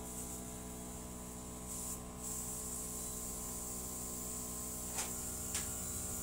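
Airbrush makeup compressor running with a steady hum, and the hiss of air spraying from the airbrush gun, which grows stronger about two seconds in. Two sharp clicks come near the end.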